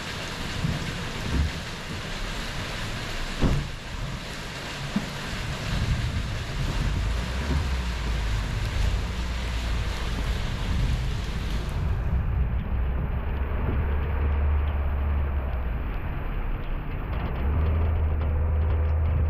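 Steady rain falling on a car's hood where the camera is mounted, over a low rumble of the moving car and wind on the microphone, with a couple of sharp knocks in the first few seconds. About twelve seconds in the high hiss cuts off abruptly, leaving the low rumble.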